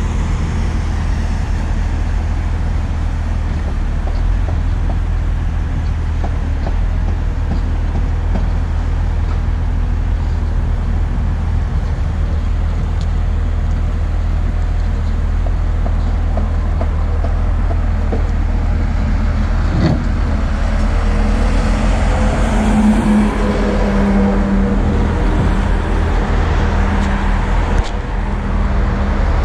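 Motor grader's diesel engine running steadily as the machine grades a gravel bed, growing louder about two-thirds of the way through as it draws near, with road traffic in the background.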